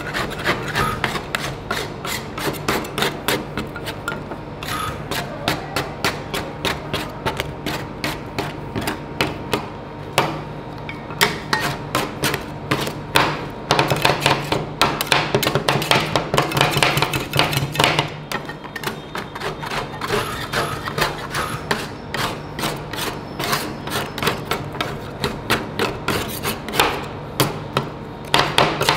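Two metal spatulas rapidly and repeatedly chopping and scraping ice cream mixture against the frozen steel plate of a rolled ice cream pan, making quick metallic clacks, over a steady low hum.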